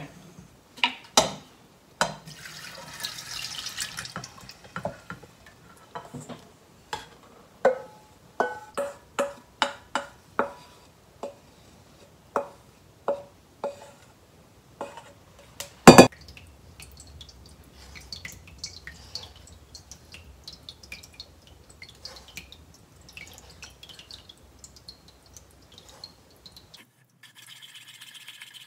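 Wooden paddle and stainless steel bowls knocking and clacking against a fine-mesh sieve as azuki bean slurry is poured through it, with splashing and dripping. There is a series of sharp clacks and one loud clank about sixteen seconds in.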